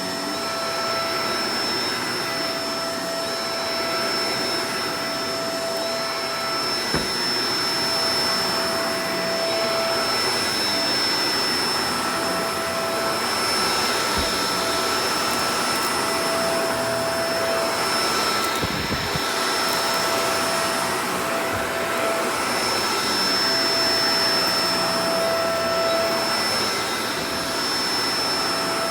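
Shark Professional Powered Lift-Away DLX (NV586) vacuum cleaner running steadily: a rush of air with a steady whine over it, and a few low bumps along the way.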